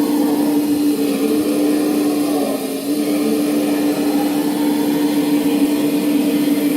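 Servonaut SMB sound module in an RC scale Komatsu PC490 excavator playing its recorded excavator sound through the model's speaker while the upper body swings: a steady diesel-like hum with a strong low tone, dipping briefly about two and a half seconds in.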